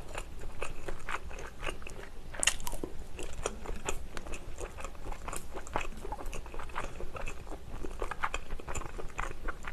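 Close-miked chewing and mouth sounds of a person eating home-style Korean side dishes, with scattered sharp clicks throughout and a louder click about two and a half seconds in.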